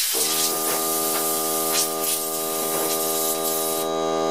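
Compressed air hissing from a blow gun fed by a Ryobi P739 18V cordless air compressor. About a quarter second in, the compressor's motor and pump start and run with a steady pitched drone, refilling the 1-gallon tank as its pressure drops. The air hiss stops near the end while the compressor keeps running.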